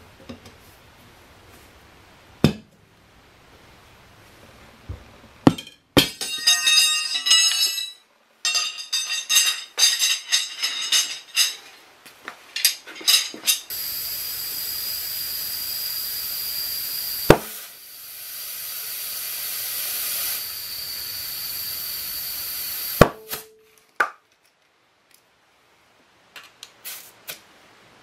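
Steel tire irons clinking and ringing against the alloy rim as a motorcycle tire is levered onto the wheel. Then compressed air hisses steadily through an air chuck into the tire for about nine seconds, with one sharp snap partway through, and the hiss cuts off suddenly.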